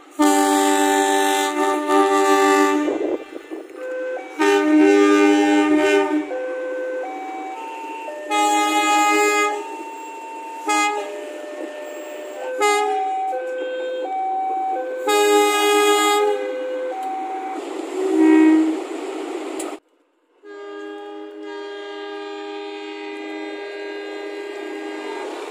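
Multi-tone train air horns sounding a run of short and long blasts, each a chord of several notes, stepping between different pitches like a tune. After a brief break near the end, one long steady chord is held.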